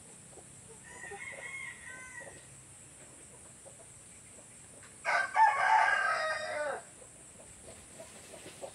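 A rooster crows once loudly about five seconds in, a long call lasting under two seconds that drops off at the end. A fainter crow comes about a second in, and soft short clucks sound in between.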